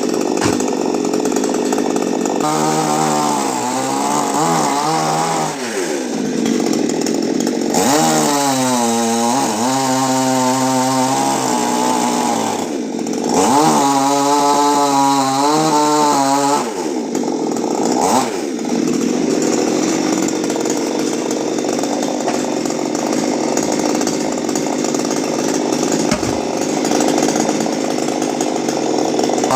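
Chainsaw running continuously. It revs up and down in three spells during the first half, then holds a steady note for the rest.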